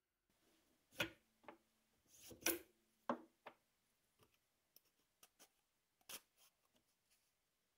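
Light clicks and knocks of plywood drum discs and parts being handled on a spindle sander's table and steel spindle, a few sharp taps (loudest about a second in and at two and a half seconds) among faint ticks.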